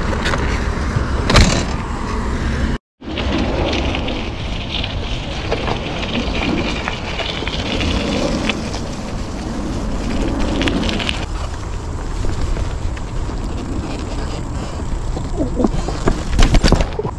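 A BMX bike riding over a dirt trail: a steady rush of tyre and wind noise, with sharp knocks from bumps about a second and a half in and several near the end. The sound cuts out briefly about three seconds in.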